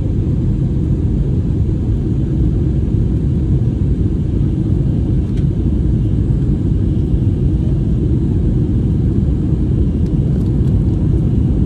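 Steady low rumble of cabin noise inside an Airbus A321neo airliner in flight: engine and airflow noise heard through the fuselage.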